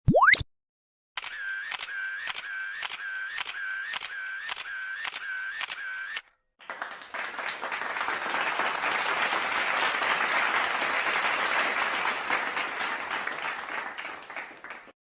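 A run of separate comic sound effects. First comes a quick sound rising in pitch. Then about a dozen evenly spaced clicks, each with a short tone, come about two a second. Last comes a long burst of applause-like clapping noise that swells and then fades away.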